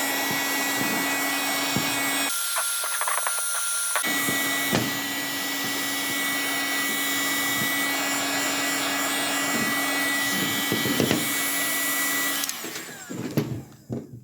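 Handheld heat gun running, a steady blowing rush with a constant high whine from its fan motor. The sound briefly changes about two seconds in, and it is switched off near the end, the whine falling as the fan spins down. A few light taps sound while it runs.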